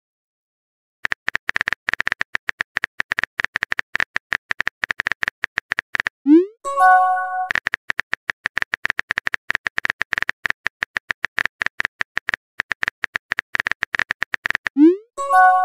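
Texting-app sound effects: a rapid patter of phone-keyboard typing clicks as a message is typed. Twice, at about six seconds and again near the end, the typing ends in a quick rising swoop and a short chime as the message is sent.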